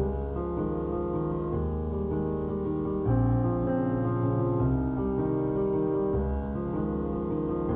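Background piano music, slow chords changing about every second and a half.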